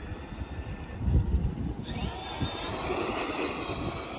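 Traxxas Maxx RC truck's brushless electric motor whining up as the throttle is pulled, about two seconds in, then holding a steady high whine over a rush of tyre noise. A few low thumps come about a second in.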